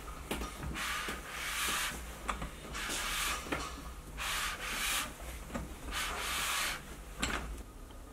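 Repeated scraping, rubbing strokes, about five of them, each under a second long with short gaps between, as a hand works a tool at the side of a Subaru EJ22 boxer engine's aluminium block.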